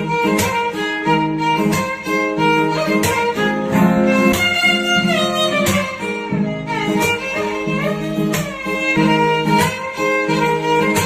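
Instrumental ringtone music: a melody that slides between notes over a steady beat.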